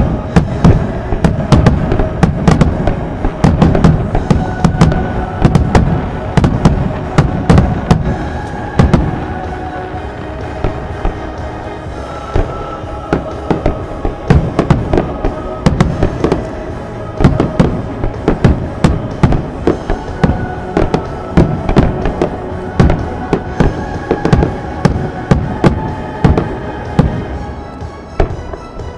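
Fireworks shells bursting in a rapid, continuous barrage, many bangs close together, over music with sustained notes.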